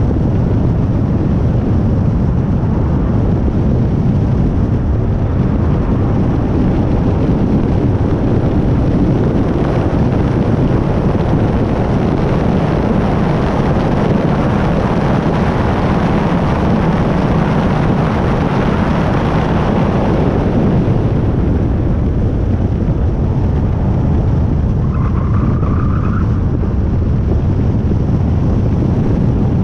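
Wind buffeting a microphone mounted low on the side of a Hyundai i30 N at track speed, mixed with tyre and road roar; a steady dense rush that grows brighter in the middle. A brief high squeal sounds about 25 seconds in.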